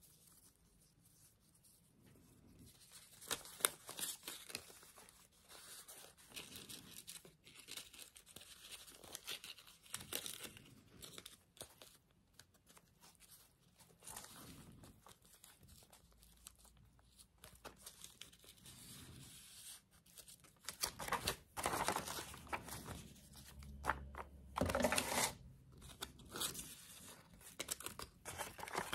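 Hands rustling and crinkling dried tea-bag paper and journal pages, with soft rubbing and small taps as the pieces are pressed down and moved. The rustling grows busier and louder in the last third.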